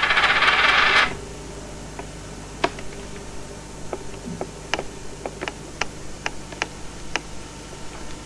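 Budgerigar's high, buzzy, rapid chatter, stopping about a second in. After it, faint sharp ticks come every half second or so.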